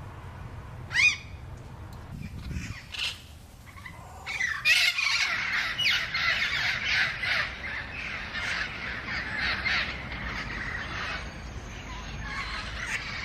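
A flock of feral parrots calling. One loud squawk comes about a second in, then from about four seconds many harsh calls overlap in a dense chorus that thins out near the end.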